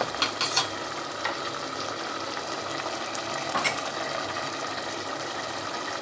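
Carrot-zucchini curry simmering in a stainless steel pot on the stove, a steady bubbling hiss, with a few clicks in the first second and another about three and a half seconds in.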